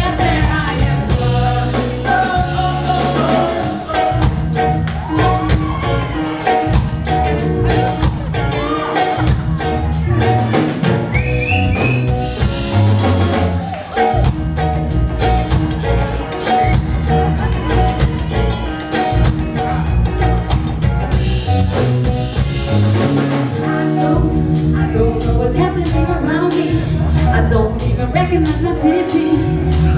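Live band playing a song: drum kit keeping a steady beat under bass, electric guitar and keyboard, with singers on lead vocals.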